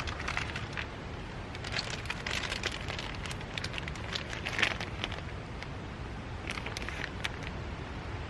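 Wood fire crackling in a small fire stand: irregular sharp pops and snaps over a steady low rumble.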